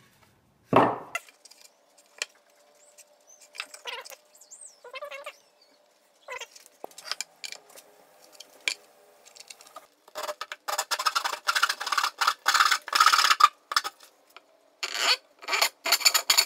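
Wood being sawn by hand: a saw cutting the end off a 2x4 tenon in quick rasping strokes, in two spells in the second half, after a stretch of scattered clicks and knocks as the workpiece is handled.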